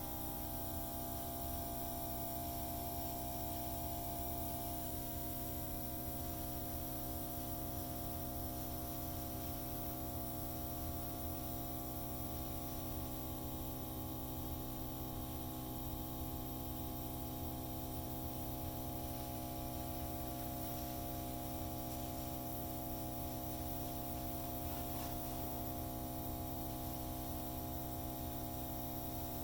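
Hair dryer running steadily, a constant motor hum with several steady tones over the hiss of its fan.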